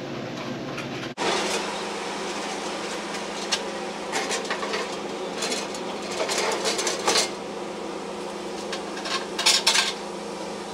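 Short bursts of metal clinking and clattering, in three clusters, as a copper gas lantern is lifted and slid onto its metal wall-mounting bracket, over a steady low hum.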